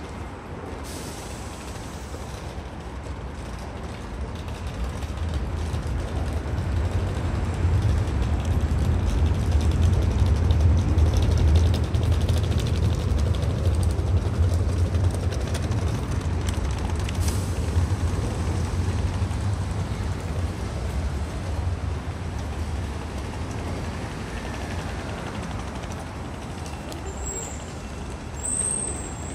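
Low rumble of a heavy vehicle passing, swelling over several seconds and then slowly fading, with a brief high squeal near the end.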